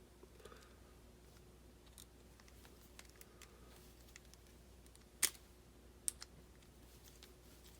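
Faint clicks and taps of small plastic RC-car kit parts being handled and fitted by hand, with two sharper clicks about five and six seconds in.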